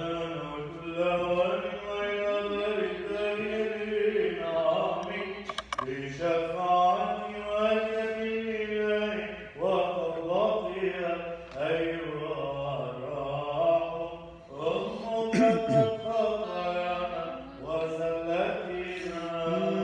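Eastern Orthodox Byzantine chant: male voices sing a slow, drawn-out melismatic melody over a steady held drone (ison).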